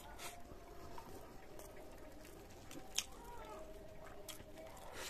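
Quiet eating with bare fingers: rice scooped from a metal plate and chewed, with two sharp clicks, one at the start and one about three seconds in.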